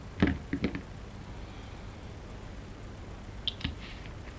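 Several sharp clicks and taps of hand tools and small parts being handled at a workbench: steel needle-nose pliers and the KC-02's trigger mechanism housing. A quick cluster of clicks comes near the start and one or two more about three and a half seconds in, with the pliers set down on the bench.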